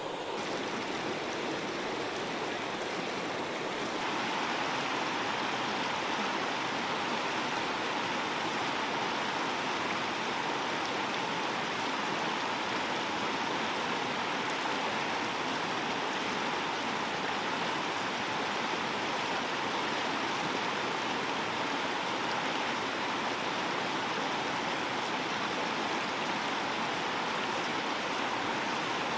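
Fast-flowing river rushing steadily, slightly louder from about four seconds in.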